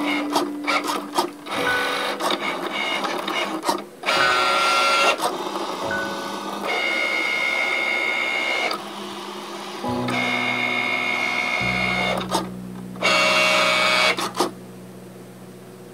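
Cricut Maker cutting machine drawing with a pen on cardstock: its carriage and roller stepper motors whine as the pen head moves back and forth and the mat feeds. The whine shifts pitch every second or two, with short clicks in the first couple of seconds.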